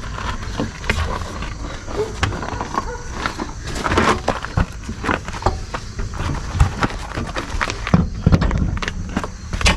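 Irregular knocks, clicks and clatter of parts and tools being handled while working at a truck's rear wheel, over a low steady rumble.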